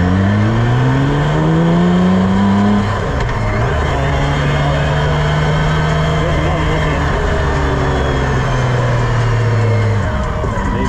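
Campagna T-Rex three-wheeler's engine accelerating, its pitch rising for about three seconds, dropping suddenly at a gear change, then holding a steady pitch while cruising. Wind and road noise in the open cockpit run underneath.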